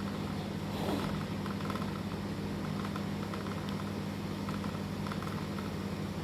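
A steady low hum, like a room fan or air conditioner, with faint, irregular chewing sounds of someone eating noodles.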